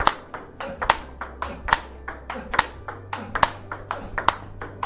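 A table tennis rally: celluloid-type balls struck by rubber-faced bats and bouncing on the table, in a steady rhythm of sharp clicks, about four or five a second. It is a forehand topspin (loop) drill against balls placed to small, unpredictable spots.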